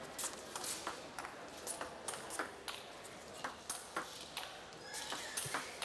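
Table tennis rally: the celluloid ball clicking sharply off the rackets and the table in quick alternation, about three clicks a second.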